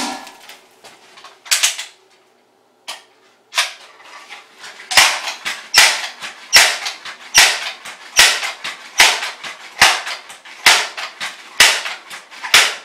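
Pellet gun fired over and over at a tin can, about a dozen sharp shots, each with a short decaying tail. The first few come at uneven gaps; from about five seconds in they follow at a steady pace of a little more than one a second.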